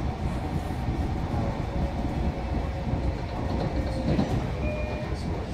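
Long Island Rail Road commuter train running along the line, heard from inside the carriage: a steady low rumble of wheels on rails.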